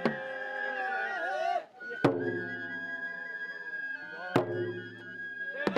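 Traditional Japanese shrine-festival music: high, held wind-instrument notes moving in slow steps over lower sliding tones, with single sharp percussive strikes roughly every two seconds.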